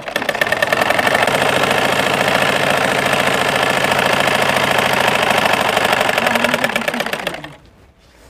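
Domestic sewing machine stitching at a fast, even rhythm, then stopping near the end.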